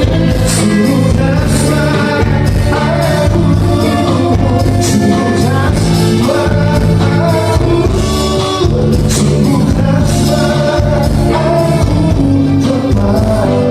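Live band playing a song with singing, drums and cymbals keeping a steady beat.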